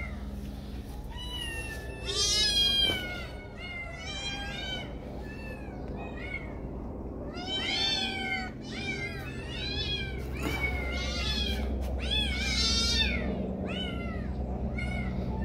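Kittens meowing over and over, in high-pitched, rising-and-falling meows that often overlap one another. They are loudest about two seconds in and again around twelve seconds in.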